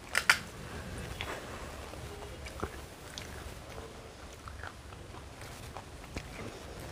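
Crisp fried puri (fuchka) shells cracking as a thumb punches a hole in the top: two sharp cracks just after the start, then lighter scattered crackles as the broken shell is handled and stuffed with mashed potato.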